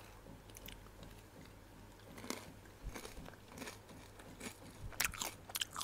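Crisp crunching and chewing of crispy deep-fried potato strips (sambal goreng kentang): short, sharp crunches scattered through, more of them close together near the end.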